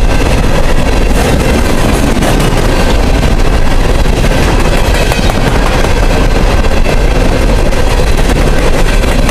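Empty coal cars of a freight train rolling past at speed: a steady, loud rumble and clatter of steel wheels on the rails.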